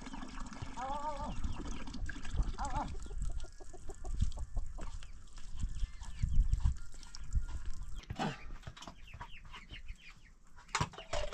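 A chicken clucking, two short arched calls in the first three seconds, followed by low thuds and scattered sharp knocks and clicks.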